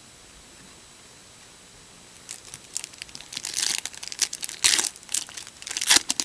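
Trading-card pack wrapper being crinkled and torn open, a run of sharp irregular crackles starting about two seconds in.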